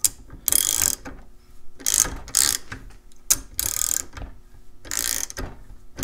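Hand ratchet wrench clicking in short runs about every second and a half, one run on each back-swing, as it turns down the nut of a core puller that is pulling the core out of a padlock.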